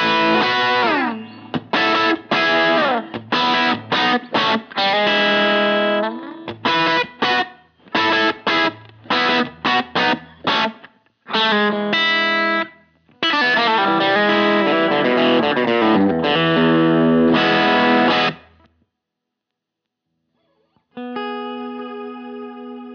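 Electric guitar on its Lambertones Crema bridge pickup, played with a driven tone through effects pedals: choppy chord stabs and riffs, then a stop of about two seconds, then a chord left ringing near the end.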